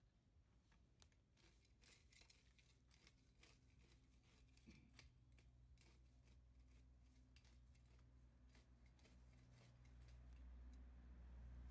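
Faint crackling and rustling of dry leaves and cut grass, many small sharp crackles, as a cat steps through and over the pile; the crackles stop near the end. A low steady hum runs underneath and grows louder near the end.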